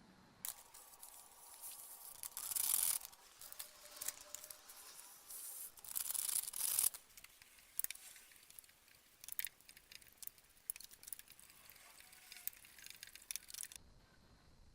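Hand work on small metal parts: two longer bursts of scraping or rubbing, then a run of scattered sharp clicks and taps that stops shortly before the end.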